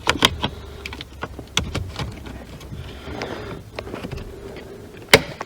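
Small plastic clicks and rattles as the ignition switch's wiring connector on a 2006 Acura TL is plugged back in, ending in one sharp click about five seconds in.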